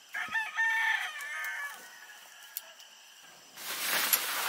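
A rooster crowing once, a call of about a second and a half. Near the end comes a rustling noise close by.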